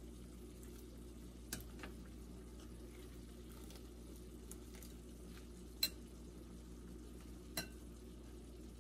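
A few sharp clicks of metal utensils and wooden chopsticks knocking against a pot and bowl as cooked noodles are lifted out, the loudest about six seconds in, over a faint steady low hum.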